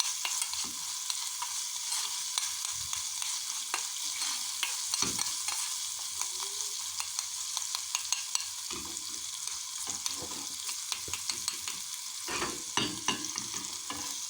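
Garlic cloves frying in olive oil in a small pot, a steady sizzle, stirred with frequent small clicks and scrapes of the utensil.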